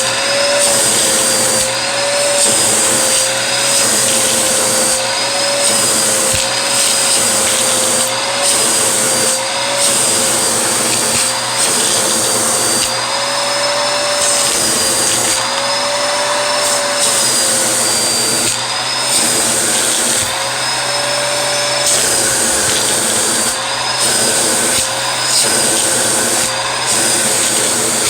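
Vacuum cleaner running steadily, its motor whine wavering slightly in pitch, with the rushing hiss dipping briefly about once a second.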